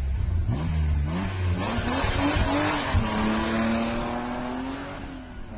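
Car engine sound effect revving up in several rising glides, then holding a steady high pitch that fades a little toward the end, with a rushing hiss through the middle.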